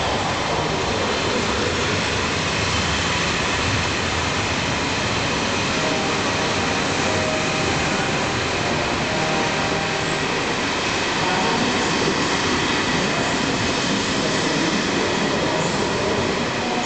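Passenger coaches of a departing train rolling past a platform: a steady noise of steel wheels running on the rails.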